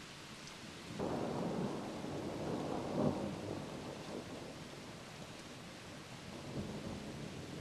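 Thunder rumbling over steady rain. It breaks in suddenly about a second in, swells to its loudest a couple of seconds later, then rolls away slowly.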